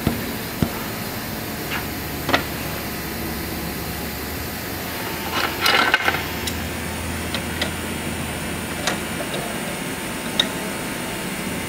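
Scattered metal clicks and clinks of a hydraulic cylinder's gland being turned onto its barrel in a bench vise and a hand tool being handled, with a short clatter about six seconds in. A steady shop hum runs underneath.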